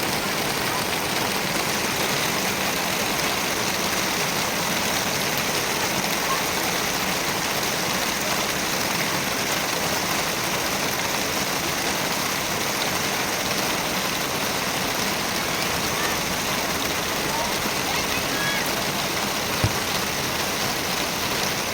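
Heavy rain falling steadily, an even hiss, with a single short thump about twenty seconds in.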